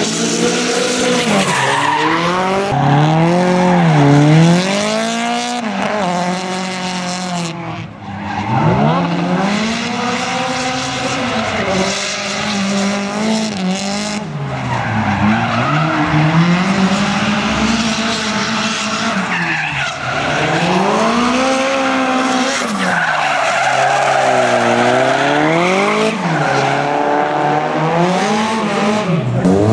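Ford Escort Mk2 drift car's engine revving up and down again and again as it slides, with its tyres squealing. The sound breaks off briefly about eight seconds in and picks up again.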